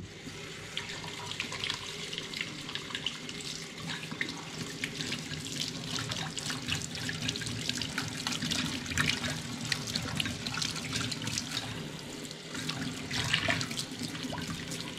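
Kitchen sink tap turned on right at the start and running steadily, water splashing as soapy hands are rinsed under it.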